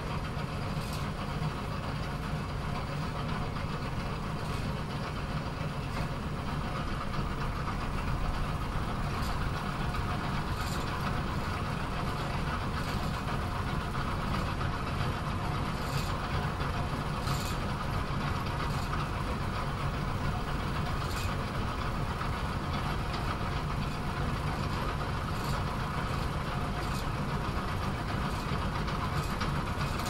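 Bowling alley pinsetter machine running steadily with a low mechanical drone, with scattered sharp clacks every few seconds.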